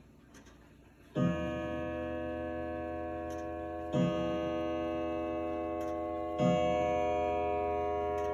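Antique Bawo & Dotter Elite tall case clock striking the hour on its tubular chimes. After about a second of faint ticking come three slow strokes, about two and a half seconds apart, each ringing on with a rich bell tone.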